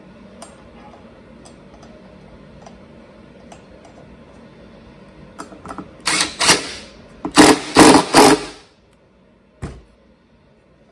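Cordless impact driver hammering the flywheel nut down onto the crankshaft of a Stihl blower engine, in several short loud bursts in the second half. Before them come a few light clicks of parts being handled.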